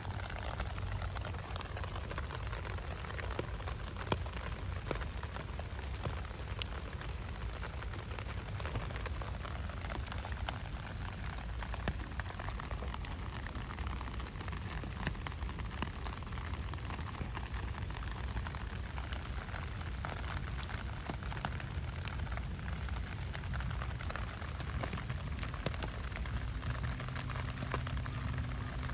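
Heavy rain falling steadily on foliage and the ground, an even hiss of rain with scattered sharp drop ticks. A low steady hum comes in near the end.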